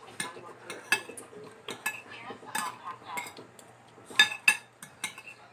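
Cutlery and dishes clinking and clattering in a string of sharp knocks, the loudest two close together about four seconds in.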